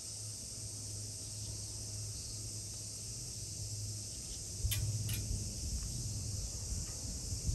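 A steady, high insect chorus drones throughout over a low hum. Two sharp clicks come just before the five-second mark.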